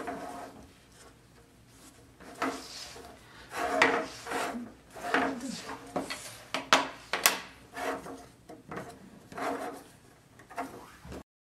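Wooden lampshade-kit parts rubbing, scraping and knocking against each other as curved ribs are worked into the notched rings of the frame, with two sharp clicks a little past the middle.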